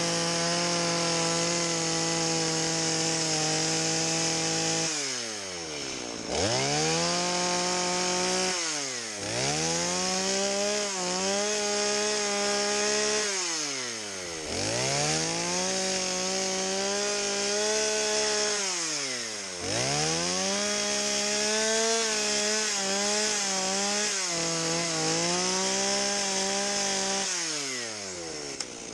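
Two-stroke chainsaw fitted with a small dime-tip carving bar, running at high revs; its pitch drops sharply and climbs back several times, wavering while the bar's nose cuts. The saw is nicking short angled cuts into the wood with the tip of the bar to make a morel mushroom's ridged texture.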